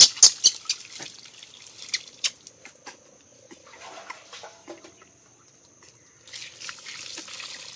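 Water poured from above splashing over a baby monkey and into a puddle on the ground. A burst of splashes comes right at the start, then scattered drips and splashes, and another stretch of pouring and splashing near the end.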